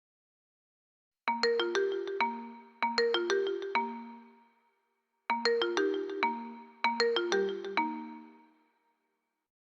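A Vivo Y50 system ringtone: a short melody of quick, struck-sounding notes that ring out, played once and then repeated a second later.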